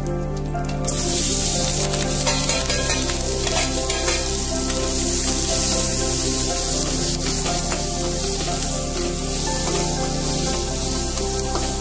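Chopped karonda berries and green chillies sizzling as they fry in hot oil in a steel kadai, stirred with a slotted metal spoon. The sizzle starts about a second in, with background music under it.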